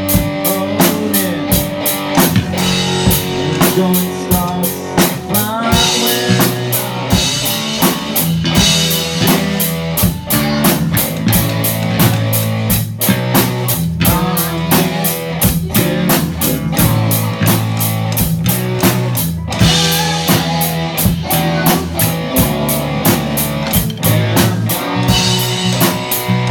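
A young rock band playing a song live: a drum kit keeping a steady beat under electric guitar and bass, with children's voices singing into microphones.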